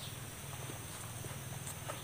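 A person eating roasted chicken by hand: a few faint, scattered clicks of chewing and handling food, over a steady low hum and a faint steady high tone.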